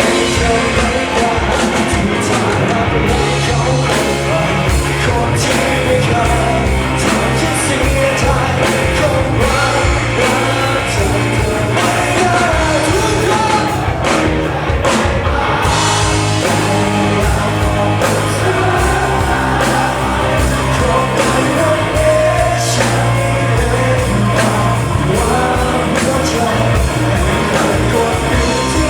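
Rock band music with a singer, playing continuously.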